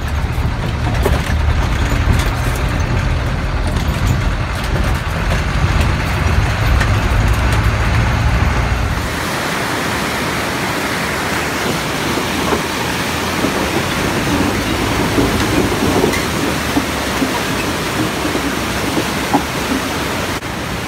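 Cabin noise inside a moving minibus: a heavy, steady engine and road rumble on a rough dirt track. About nine seconds in it gives way to a steady rushing noise of a river beside a wooden plank bridge, with the bus's engine under it and a few light knocks.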